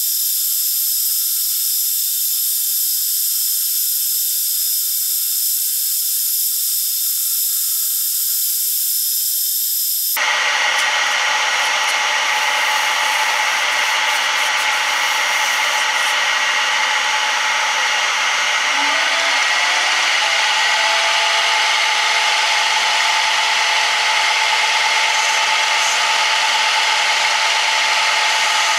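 Metal lathe running while its cutting tool takes a lengthwise cut along a cast aluminium workpiece: a steady machine whine with held tones and a hiss of cutting. About ten seconds in the sound changes abruptly and becomes fuller and lower.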